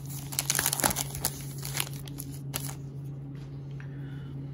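Wrapper of a 2020 Topps Heritage baseball card pack crinkling as it is torn open and the cards are pulled out. The crinkling stops about two and a half seconds in, leaving a steady low hum.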